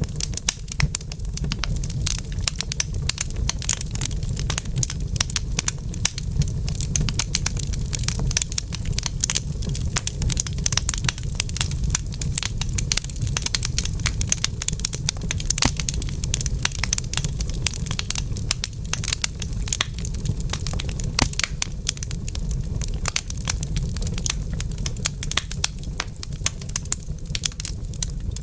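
Fire burning in a fireplace, crackling with dense, rapid pops and snaps over a steady low rumble.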